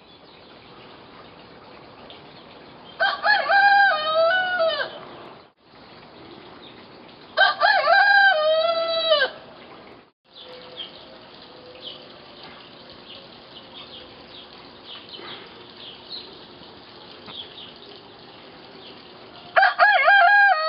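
Domestic hen crowing like a rooster: two full crows of about two seconds each, then a third starting near the end. A hen that until now has only clucked.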